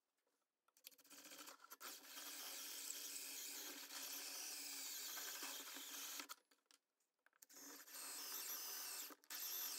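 DeWalt cordless drill spinning a hole saw through aluminum bracket sheet, a steady cutting grind. It starts about a second in and runs for about five seconds, stops for about a second, then cuts again until near the end.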